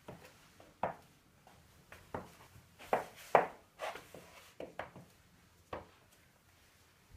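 Irregular sharp clicks and knocks, about eight, thickest in the middle: high-heeled pumps stepping and turning on a wooden floor.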